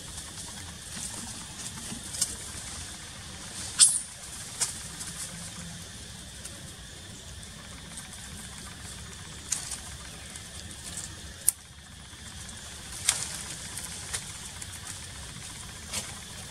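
Steady outdoor background noise with a handful of short, sharp clicks or snaps scattered through it, the loudest about four seconds in.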